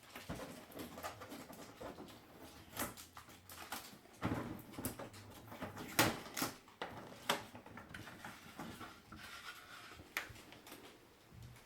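Light rustling and scraping with scattered knocks and clicks as packaging and printer parts are handled during unboxing.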